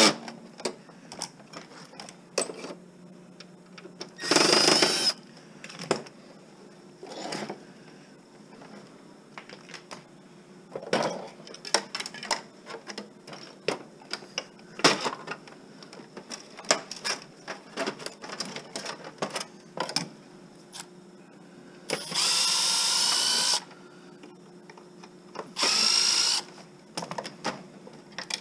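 Cordless drill-driver whirring in three short bursts while backing screws out of a TV casing, its pitch rising as the motor spins up. In between come scattered clicks, clinks and knocks of plastic and metal parts being handled.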